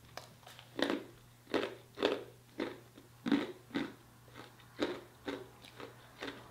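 A piece of ice being crunched between the teeth: about a dozen sharp, irregular crunches, roughly two a second, the loudest in the first half.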